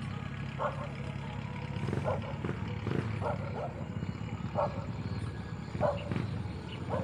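Short animal calls repeated about once a second, over a low steady rumble.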